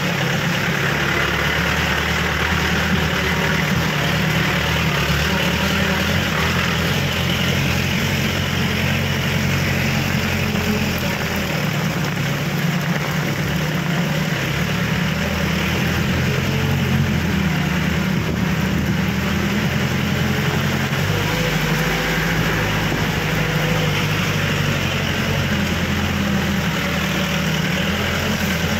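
Vehicle engine running low and steady as it drives along a muddy forest track in the rain, under a constant hiss. The engine note shifts about two-thirds of the way through.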